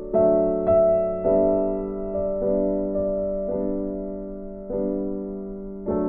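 Slow, soft background piano music, with a new note or chord struck about once a second and left to ring and fade.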